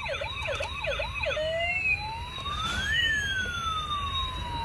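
Toy ambulance's electronic siren sounding. It goes in a fast yelp of about three quick up-and-down sweeps a second, then about a second and a half in switches to a slow wail that rises and falls once.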